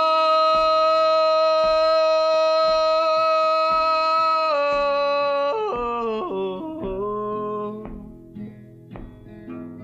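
Song with acoustic guitar: a voice holds one long high note for about four and a half seconds, then slides down through a few lower notes and stops about eight seconds in, leaving soft plucked guitar notes.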